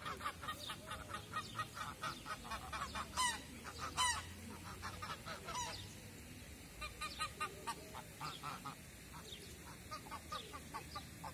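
A small flock of domestic geese honking and cackling in quick short calls, the loudest calls about three and four seconds in, then quieter calls carrying on.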